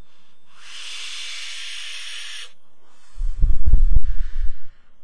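A long draw on a box-mod e-cigarette: air pulled through the atomizer and its coil hisses steadily for about two seconds. Then a forceful exhale of vapour blows onto the microphone as a loud low rumble for about a second and a half, stopping suddenly.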